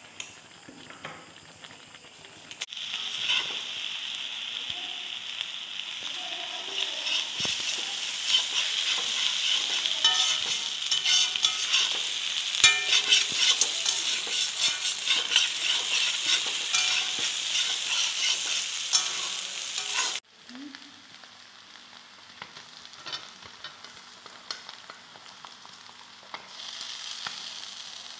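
Chicken curry sizzling in a hot black wok while a spatula stirs and scrapes against the pan, with many small clicks over a steady hiss. The sizzle starts about three seconds in and cuts off suddenly about twenty seconds in, leaving quieter scraping and crackling.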